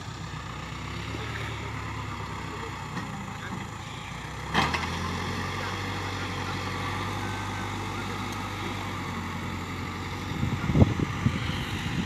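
Case 580K backhoe loader's diesel engine running steadily as the machine moves. A sharp clank comes about halfway through, after which the engine is a little louder, and a few low thumps come near the end.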